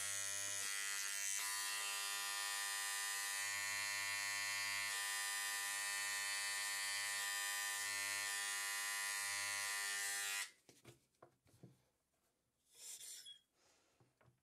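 A fossil-preparation scribe buzzing steadily as its vibrating needle chips shale matrix away from a trilobite, then cutting off suddenly about ten seconds in. Faint ticks and a brief soft hiss follow near the end.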